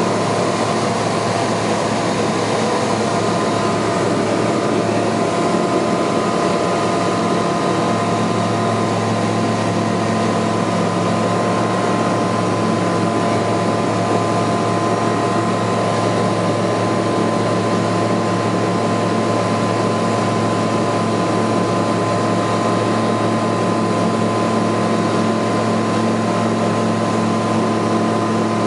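Ultralight aircraft's engine and propeller running steadily at climb power just after takeoff, heard from inside the cockpit as a constant drone with a steady hum.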